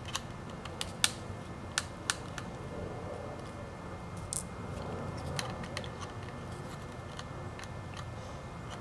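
Small precision screwdriver unscrewing the two pentalobe screws beside an iPhone 6S Plus's charging port: faint, scattered clicks and ticks of the metal tip in the screw heads, a dozen or so over several seconds.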